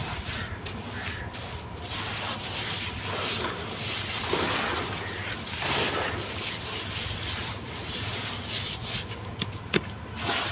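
Sand-cement blocks being crumbled and rubbed, a continuous gritty scraping that swells and fades, with a sharp click near the end.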